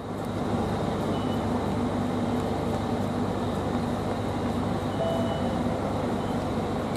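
Steady outdoor vehicle rumble, with a few faint brief tones around five seconds in.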